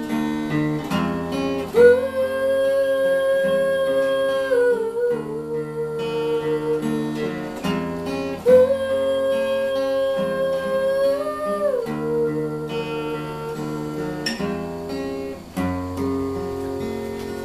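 An acoustic guitar is played to accompany a girl's voice, which holds two long sung notes, each starting on a strummed chord. Between and after the held notes the guitar carries the tune, and the level starts to fall near the end.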